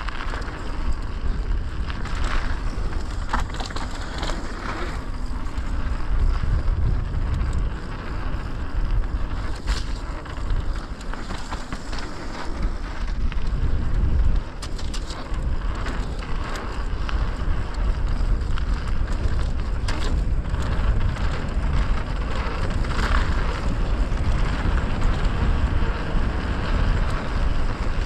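Mountain bike rolling fast down a trail, heard from a chest-mounted GoPro: steady wind rumble on the microphone and tyre noise, with scattered clicks and knocks from the bike over bumps.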